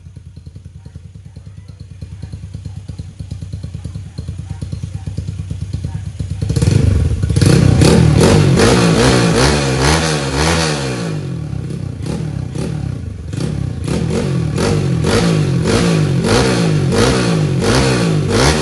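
Open-class motorcycle race engine with a long open exhaust, running on a stand: it idles with an uneven beat, then from about six seconds in it is revved hard in repeated throttle blips, the pitch rising and falling each time.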